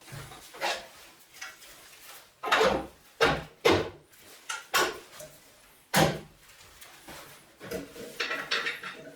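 Hard objects being handled and set down: about half a dozen sharp knocks and clunks, clustered between about two and four seconds in and again around six seconds, with scraping and rubbing in between.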